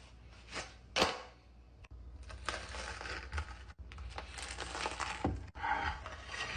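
A knife crunching and cracking through a crisp toasted quesadilla as it is cut, with a sharp clack about a second in.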